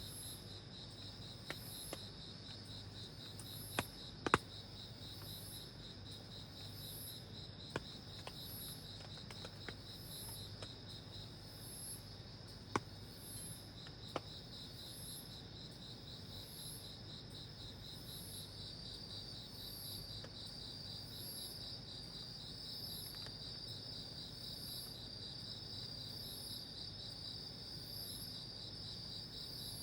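Crickets and other night insects trilling steadily in high, rapidly pulsing tones, with a few sharp ticks in the first half.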